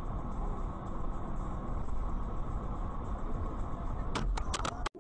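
Car driving on the road, heard from inside the cabin: steady road and engine noise. About four seconds in come a few sharp knocks in quick succession.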